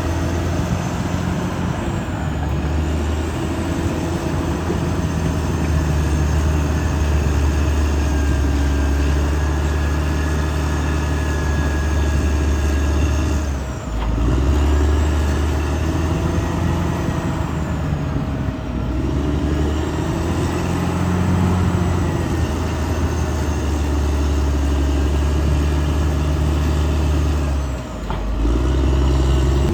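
Caterpillar D6R XL bulldozer's diesel engine running hard and steadily, its note shifting as the load on the blade changes. The sound breaks off briefly twice, about fourteen seconds in and near the end.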